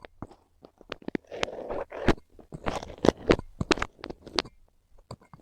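Kinetic sand crunching and scraping as it is cut and crushed, with irregular sharp clicks and short gritty rasps.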